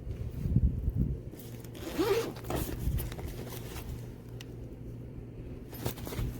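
Zipper on a lunch backpack being pulled in short rasping strokes, with thumps from the bag being handled in the first second; the zipper has come off its track.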